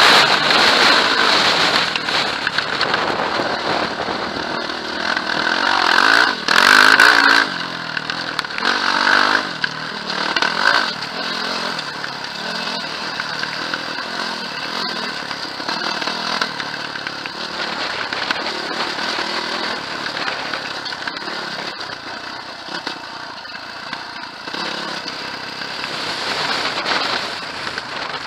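Quad bike engine running while riding a bumpy dirt trail, the throttle rising and falling, with louder revs about six to eleven seconds in.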